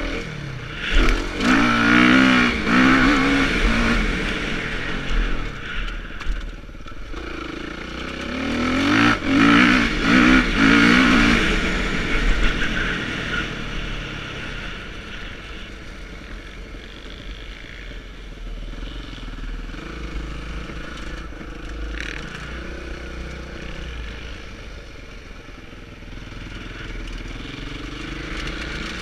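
Motocross bike engine being ridden hard on a dirt track, revving up and down through the gears in two loud stretches, then running lower and steadier for the rest of the time.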